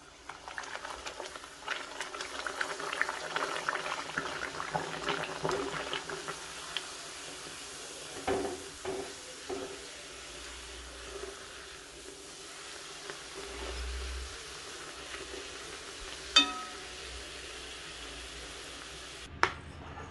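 Bhatura dough deep-frying in hot oil in a steel kadai: a busy sizzle of crackles and pops, strongest in the first several seconds and then settling to a quieter, steady sizzle. A few knocks of the metal slotted spoon against the pan come partway through, and there are two sharp clicks later on.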